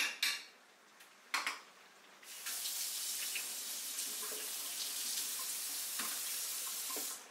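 Kitchen sink faucet running in a steady stream, turned on about two seconds in and shut off near the end. A short knock comes just before it.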